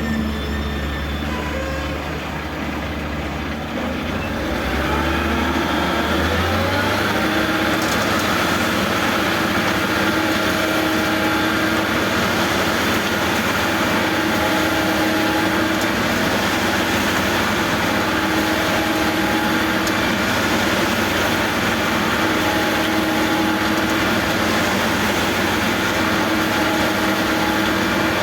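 Backhoe's diesel engine running, revving up about five seconds in and then holding steady at a higher pitch.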